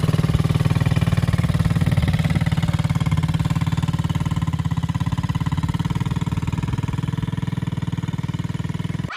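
Small engine running steadily at idle, with a fast, even pulsing; it cuts off suddenly near the end.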